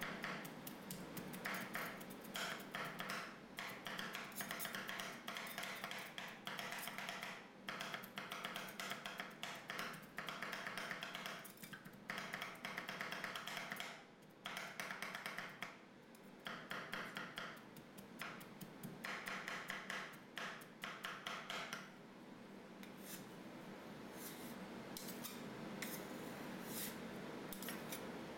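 Two metal ice cream roll spatulas chopping bitter gourd into milk on a metal cold plate: rapid clicking taps of the blade edges on the plate in bursts of a second or two with short pauses. For the last several seconds the strokes turn sparser as the spatulas scrape and spread the mixture across the plate.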